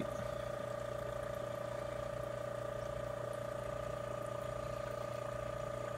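Steady hum of an aquarium air pump driving a sponge filter and a corner filter, with the fizz of bubbles rising through the water.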